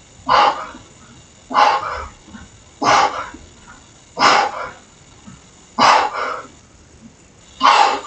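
A man breathing out hard with each rep of weighted dips: six sharp huffs, about one every second and a half.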